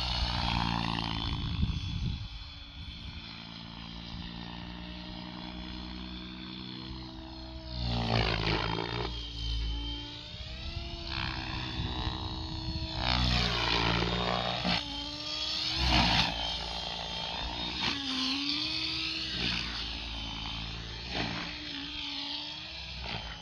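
Blade Fusion 700 electric RC helicopter in flight: a motor and rotor whine that keeps rising and falling in pitch. Several loud swishing surges of rotor-blade noise come during the harder manoeuvres.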